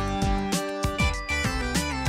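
Background music: an upbeat instrumental track with held pitched notes and a steady beat.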